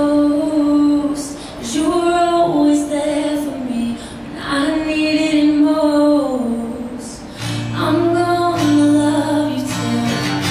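A woman singing long held, wordless notes to her own acoustic guitar accompaniment; a low guitar note comes in about three-quarters of the way through.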